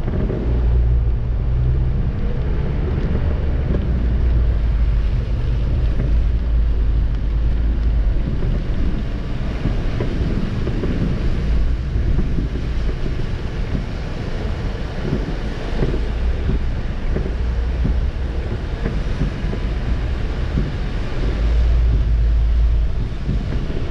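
Car driving on a rain-soaked road, heard from inside the cabin: a steady low rumble of engine and wet tyres with rain on the windscreen. The rumble swells as the car pulls away at the start and again briefly near the end.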